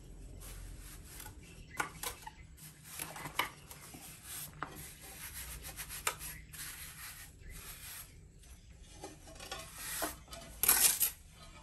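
Steel mason's trowel scraping and spreading a bed of damp cement mortar over a floor, in irregular rasping strokes, with one louder stroke near the end.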